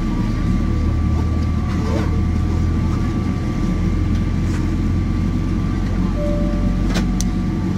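Steady low rumble and hum inside a Boeing 777-300ER airliner cabin on the ground, heard from a window seat over the wing, with thin steady tones over it. A few faint clicks and a brief tone about six seconds in.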